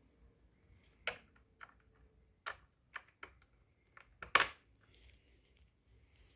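A few small clicks and knocks, about eight scattered taps with the loudest a little over four seconds in, as the motorcycle's headlight unit and its screws are handled and fitted back into place.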